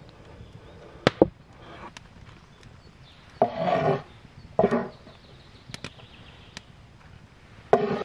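Large kitchen knife on a wooden cutting board: two sharp chopping knocks about a second in, then two longer scraping sounds and a few light knocks, with another short scrape or knock near the end.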